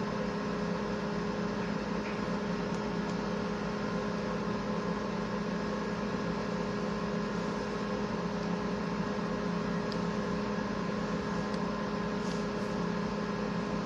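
A steady hum: an unchanging drone with a few constant tones, no distinct events.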